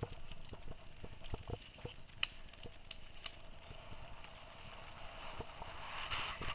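Mountain bike jolting down a rough dirt trail: irregular knocks and rattles from the bike and camera mount as the wheels hit bumps, with a rush of wind and tyre noise that grows near the end.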